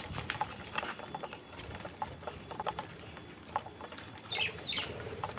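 Scattered light clicks and patter from birds moving about an aviary of pigeons and parakeets. There are two short bird chirps about four and a half seconds in.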